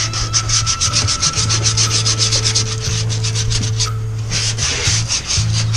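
Hand sanding the inside of a plastic kayak hull through its stern hatch: quick, even back-and-forth scrubbing strokes, about eight a second, with a short pause a little after the middle before a second short run. The interior is being roughened so spray foam will adhere.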